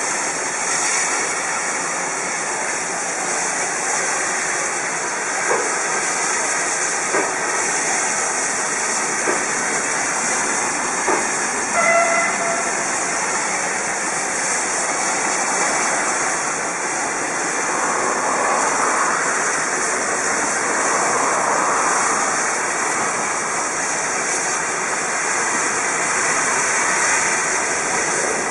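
DR Class 52 steam locomotive moving slowly, with a steady hiss of escaping steam, a few scattered knocks, and a brief high tone about twelve seconds in.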